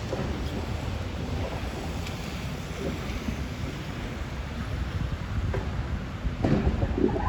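Steady low rumble of a bucket loader excavator working, with a few knocks from material near the end.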